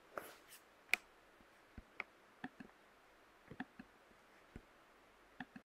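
Faint, scattered clicks and crackles as fingers pull apart nests of egg noodles softening in hot water in a plastic tub.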